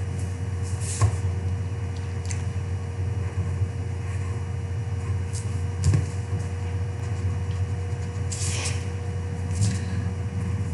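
Pencil strokes scratching on paper, with two light knocks on the wooden table about a second and six seconds in, over a steady low hum.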